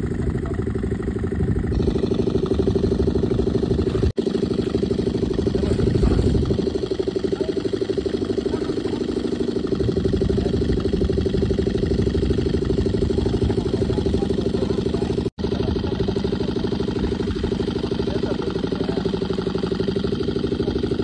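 Small engine of a water pump running steadily at a constant speed, pumping water out of the pond through its green hose. The sound breaks off sharply twice, about four and fifteen seconds in.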